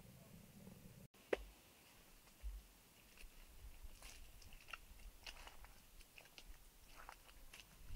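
Faint scattered clicks and crunches. One sharp click comes just after an abrupt cut about a second in, and irregular small crunching ticks follow.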